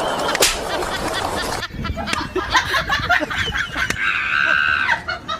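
Goose-like honking bird calls: a flurry of short calls, then one longer held call near the end.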